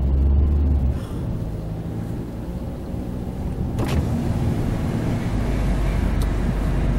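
Car cabin noise while driving: a steady low rumble of engine and tyres on the road, heavier in the first second and again near the end. A single short click comes about four seconds in.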